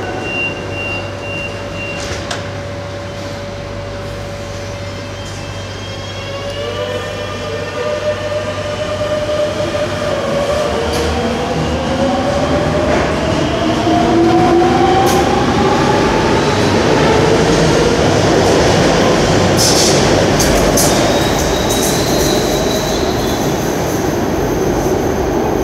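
Madrid Metro train, unit 7115, pulling out of an underground station. A steady hum comes first, then the traction motors' whine rises in pitch in several stacked tones as it accelerates away. Clicks and a high wheel squeal come as the cars go by, and a short high beep sounds right at the start.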